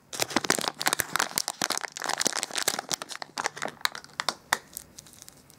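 A foil-lined plastic wrapper crinkles in the hands as it is opened and a plastic-wrapped bath ball is taken out. It makes a dense run of irregular crackles that thins out near the end.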